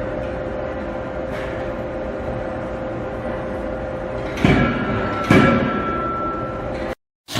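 Forging hammer striking twice in quick succession, less than a second apart, over the steady hum of the forge shop's machinery. A high steady tone sounds after the blows, and the sound cuts out abruptly near the end.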